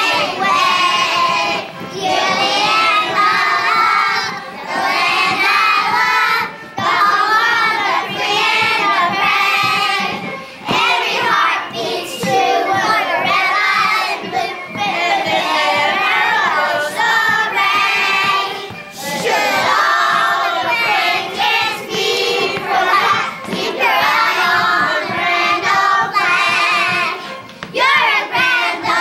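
A group of young children singing together in unison, phrase after phrase with brief breaks between lines.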